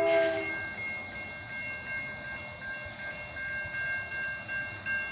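Railroad grade-crossing electronic bell ringing in a steady repeating pattern. A locomotive horn chord sounds at the start and cuts off about half a second in.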